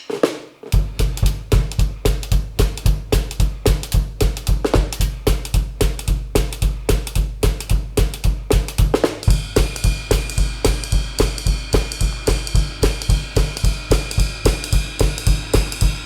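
Drum kit playing a steady, fast swing beat of the kind used in 1950s–60s Hindi film songs, with a low thud on every stroke. A little after nine seconds in, a ringing cymbal joins the groove.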